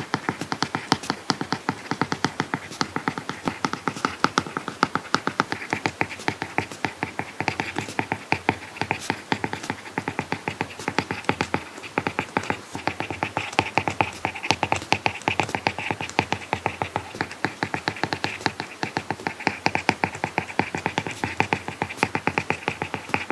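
Apple Pencil tip tapping and scratching on an iPad Pro's matte paper-like screen protector while handwriting: a quick, uneven run of light clicks, several a second.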